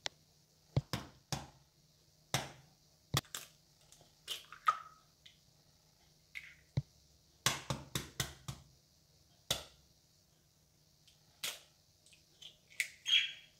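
Eggs tapped and cracked against the rim of a ceramic mixing bowl and broken open into it: a scatter of sharp taps and clicks with pauses between, and soft rustles of shell and hands.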